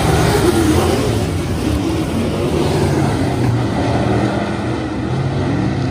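Race car engine running, a loud steady drone whose pitch rises and falls slightly.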